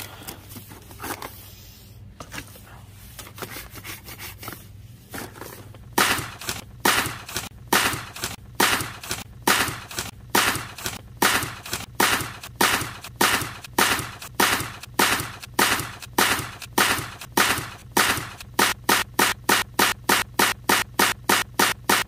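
A steady run of sharp, gunfire-like bangs, about two a second, starting about six seconds in and speeding up to about three a second near the end. Before the bangs there is only a faint low background.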